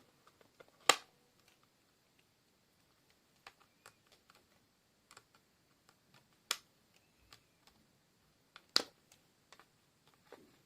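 Sharp clicks and light ticks of hard plastic as a stuck fur-clip piece is worked at in a Furby's plastic shell; three loud clicks stand out, spread a few seconds apart, with fainter ticks between.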